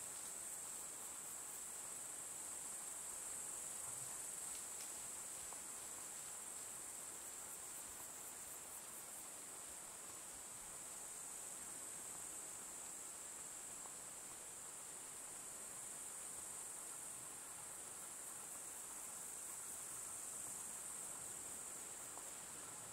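Steady, high-pitched chirring of insects in summer forest undergrowth, with brief pulsed trills laid over it near the start and again about eight seconds in.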